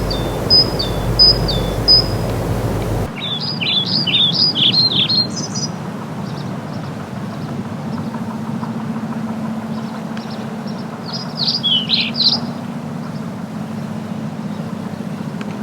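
Wild birds singing and calling in short bursts of quick, high chirping notes, three times, over outdoor background noise. About three seconds in, a low rumble drops out abruptly, as at an edit.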